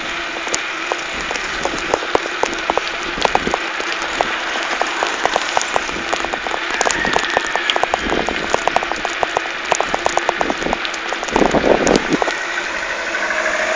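A bicycle rolling fast along a paved road, heard from a handlebar-mounted camera: a steady rushing hiss of wind and tyre noise with many small irregular clicks and rattles, and a louder rattling patch near the end.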